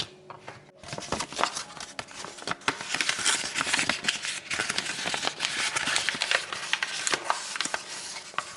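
Close handling noise: dense rustling and crinkling with many small clicks, from about a second in until near the end.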